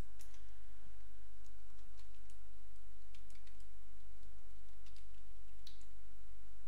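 Computer keyboard keys and mouse buttons clicking now and then, about a dozen separate clicks, over a steady low hum.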